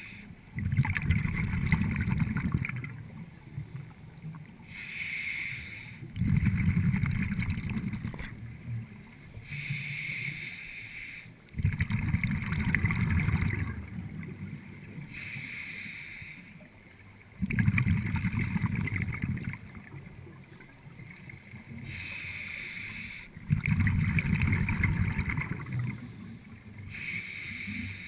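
Scuba regulator breathing underwater: a hissing inhale through the regulator, then a loud rumbling burst of exhaled bubbles lasting a couple of seconds. The cycle repeats about every six seconds, five exhales in all.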